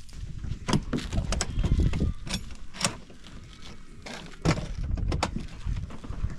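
A run of irregular knocks and clatters, about a dozen scattered through the few seconds, over a low rumble.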